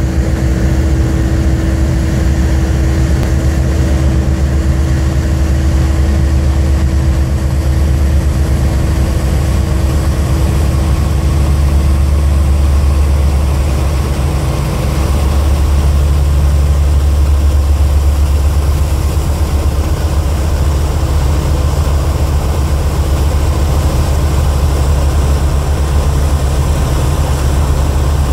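Avro Shackleton's Rolls-Royce Griffon V12 engines running on a ground run-up, a loud steady deep drone from the piston engines and contra-rotating propellers. The level dips briefly about halfway through, then steadies again.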